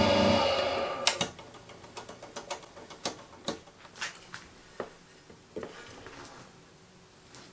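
A small bench lathe's motor is switched off and dies away within about a second. It is followed by a string of light, irregular metallic clicks and taps as metal tools are handled on the machine.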